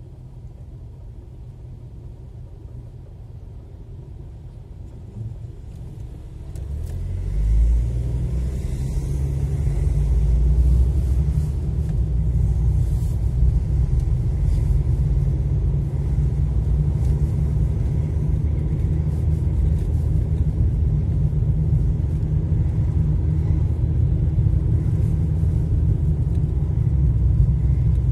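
Low rumble of a car's engine and tyres heard from inside the cabin. It is quiet while the car waits in traffic, then grows louder about six to seven seconds in as the car pulls away, and stays steady as it drives on.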